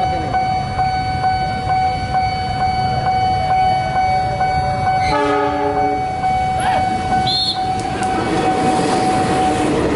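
Railway level-crossing warning siren sounding one steady tone while a train runs past with a clickety-clack rumble. The train's horn blasts once for about a second, about five seconds in. The siren tone cuts off near the end.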